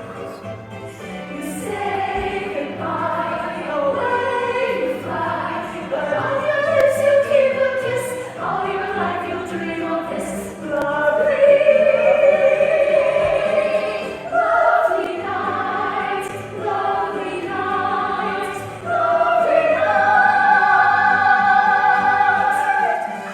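Several voices singing a musical-theatre number in harmony over orchestral accompaniment with a steady low pulse, building to long held notes in the last few seconds.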